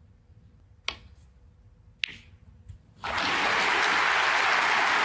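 A snooker shot: a sharp click of cue on cue ball about a second in, a second ball click about a second later, then the arena audience applauding steadily from about three seconds in.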